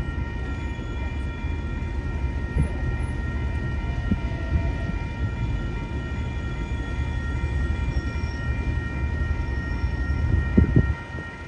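Diesel locomotive of a passenger train running slowly into a station platform: a steady engine rumble with a steady high whine over it. A couple of short knocks come near the end.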